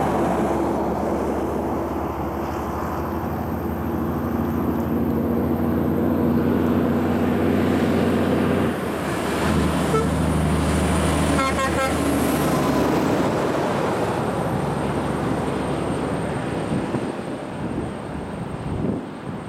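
Heavy diesel trucks, a green Scania log truck and a bonneted truck towing box trailers, driving past, their engines running steadily with tyre noise. The engine note changes suddenly about nine seconds in, and the sound eases off near the end as the trucks move away.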